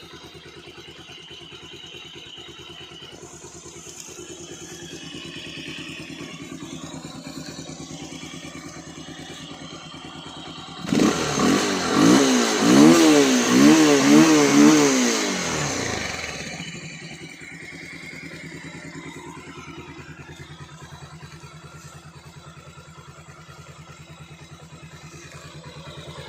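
Motorcycle engine idling steadily. About eleven seconds in it is revved in a run of quick throttle blips, its pitch rising and falling, then it settles back to idle after about five seconds. It is being run so the owner can listen for tapping or timing-chain noise after adding octane booster to the fuel.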